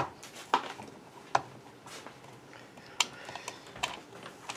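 Sharp clicks and taps of a screwdriver and hands against the plastic housing of a Hitachi electric drill being taken apart, about five of them at uneven intervals, the loudest right at the start.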